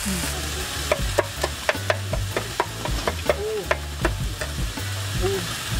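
Beef and mushrooms sizzling on a griddle pan over a portable gas stove, with a run of sharp clicks as tongs and chopsticks tap the pan and metal bowls.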